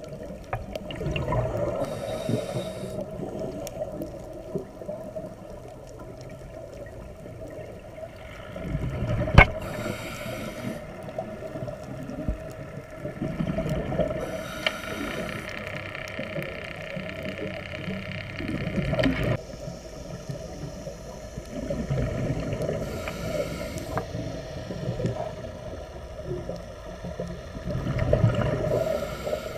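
Scuba diver breathing through a regulator underwater, recorded by the underwater camera: a hiss on each breath and a rush of gurgling bubbles on each exhale, about every six seconds. A single sharp click sounds about nine seconds in.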